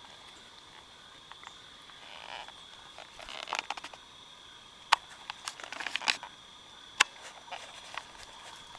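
Scattered sharp clicks and short bursts of rustling, most likely from a handheld camera being moved and gripped, over a faint steady high-pitched hum. Two clicks, one about five seconds in and one about seven seconds in, are the loudest.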